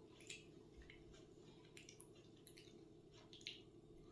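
Near silence: faint scattered clicks and soft smacks of someone eating with their fingers, picking at and chewing grilled fish, over a low steady room hum.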